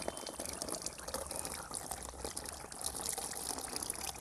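Battery acid pouring in a thin stream from a lead-acid car battery's filler hole into a plastic tub, a steady trickling splash.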